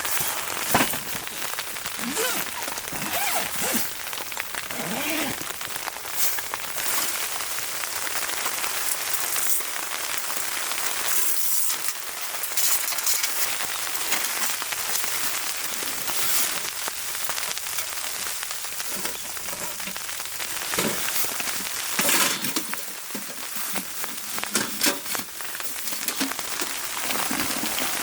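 Steady patter of precipitation hitting a surface, a dense hiss with many small ticks and scattered louder taps.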